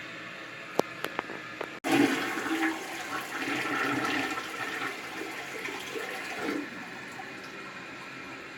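A few sharp clicks, then a toilet flushing about two seconds in: a loud rush of water that eases after a few seconds into the steady hiss of the tank refilling. This is a test flush after the leaking tank bolts and washer were replaced, and no leak shows.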